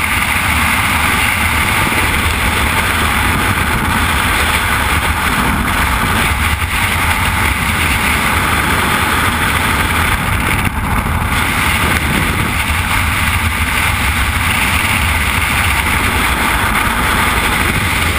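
Freefall wind rushing over the camera's microphone: a loud, steady rush with no breaks.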